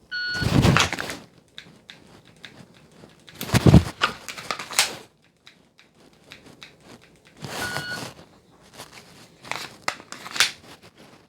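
A shot timer's start beep, then about 7.5 seconds later its par-time beep, framing a dry-fire draw-and-reload run with a Glock 45. Between the beeps come clothing rustle and small clicks of dry trigger presses, and a louder clatter of handling during the reload about 3.5 to 5 seconds in. More clicks and rustle follow near the end.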